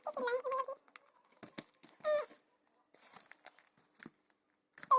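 Plastic packaging crinkling and tearing in short bursts, with three short pitched animal calls that slide down in pitch: one at the start, one about two seconds in and one near the end.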